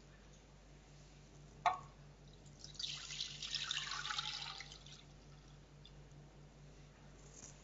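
A single sharp knock, then milk poured from a bowl into a wide pan, splashing for about two seconds.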